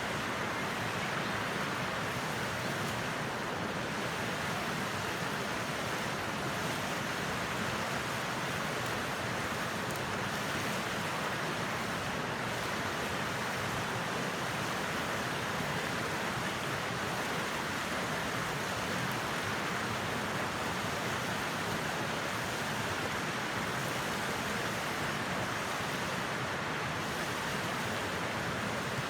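A steady, even rushing noise that does not change, with no distinct pops or crackles.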